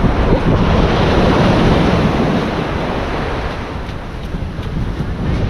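Ocean surf breaking and washing on the shore, swelling in the first two seconds and then easing off, with wind buffeting the microphone.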